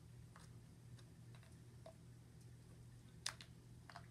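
Near silence: faint room hum with a few soft clicks scattered through it, and one sharper click about three seconds in.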